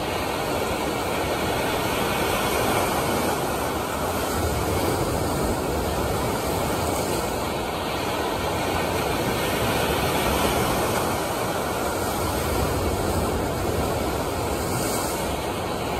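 Steady rush of breaking waves in an artificial surf pool, an even, unbroken wash of water noise.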